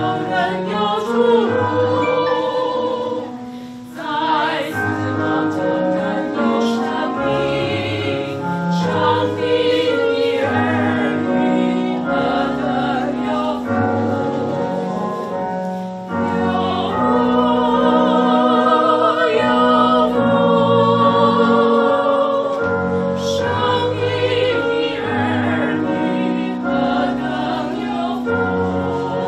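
A small women's choir singing a Chinese-language hymn, with held notes and vibrato, over a low instrumental accompaniment whose chords change every second or two.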